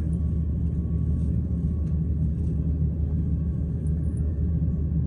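Steady low rumble of an airliner's cabin on the ground before takeoff, with a faint steady hum laid over it.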